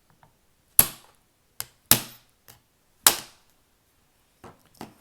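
Three sharp knocks about a second apart, with a few lighter taps between, as a freshly crimped Powerpole contact is knocked out of the crimper's jaws.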